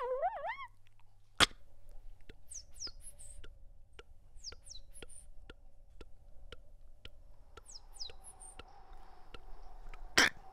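Beatboxed street sounds made with the mouth: evenly spaced footstep clicks about two to three a second, with three short runs of high falling bird chirps over a faint steady hum. A warbling pitch glide opens it, and a louder knock comes near the end.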